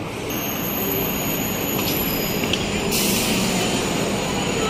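Steady city traffic noise, with faint high-pitched whines over it.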